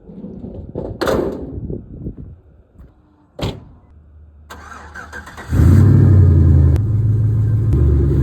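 LS-swapped 1973 Dodge Dart's GM LS V8 being started: a couple of sharp clicks, brief cranking, then the engine catches about five and a half seconds in and settles into a loud, steady idle.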